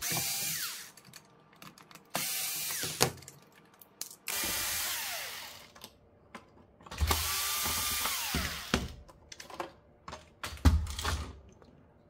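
Cordless electric screwdriver running in four short bursts, backing out the screws that hold a Roomba's side-brush gearbox to its plastic chassis. Its motor whine drops in pitch as each burst ends. A few knocks of handling plastic parts come near the end.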